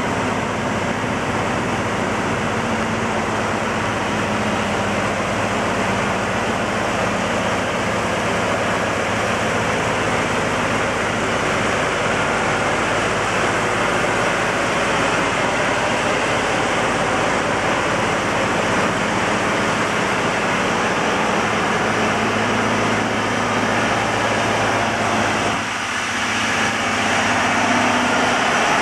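DE15 diesel-hydraulic locomotive running as it pulls a train slowly past, a steady low engine hum under an even hiss.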